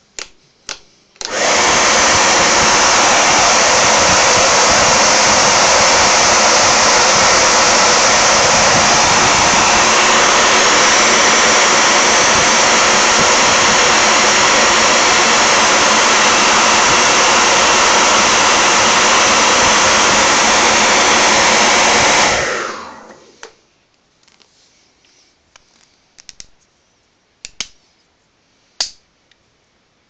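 Handheld hair dryer switched on about a second in, blowing steadily for about twenty seconds as it heats an ABS printed part, then switched off and winding down over about a second. A couple of light clicks come just before it starts, and a few light knocks follow near the end.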